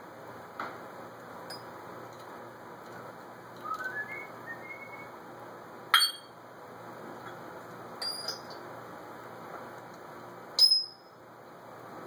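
African grey parrot whistling: a run of soft, short whistle notes stepping upward in pitch about four seconds in, then three short, loud, high-pitched whistled squeaks about two seconds apart, the last the loudest.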